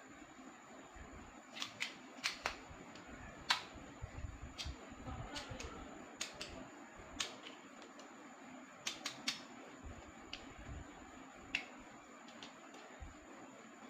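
Irregular sharp clicks and taps from a selfie stick being handled as it is unboxed, spaced unevenly and the loudest about three and a half seconds in.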